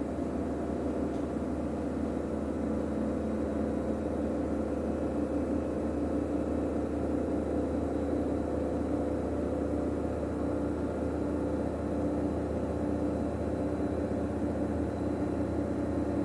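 Bosch Serie 8 front-loading washing machine spinning: a steady motor hum and whine at even speed.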